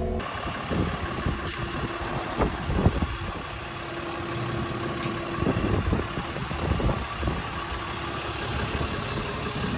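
Heavy machine's engine running steadily, with a thin high whine over it and scattered knocks and clanks.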